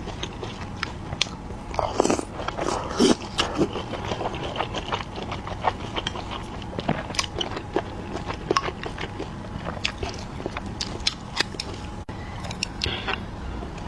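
Close-miked biting and chewing of a large pork-and-corn dumpling: a steady run of short mouth clicks and snaps, with a louder cluster of bites about two to three and a half seconds in.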